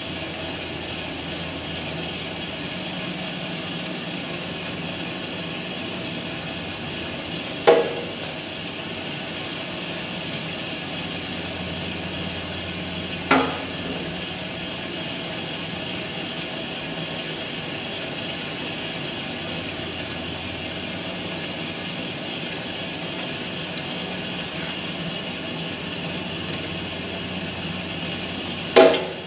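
Horizontal metal-cutting band saw running steadily, with a low hum under a hiss. Three sharp knocks stand out: about eight seconds in, about thirteen seconds in, and near the end.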